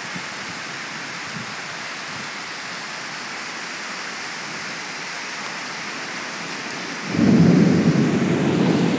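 Heavy rain and pouring runoff water, a steady hiss. About seven seconds in, a sudden loud low rumble sets in and carries on.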